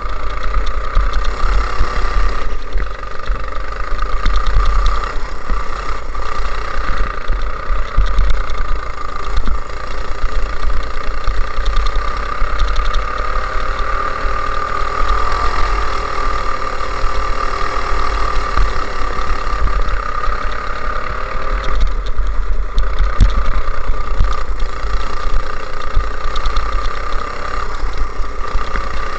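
Go-kart engine running on track, heard from on board the kart, its pitch rising and falling as the driver accelerates and lifts through the corners, over a heavy low rumble.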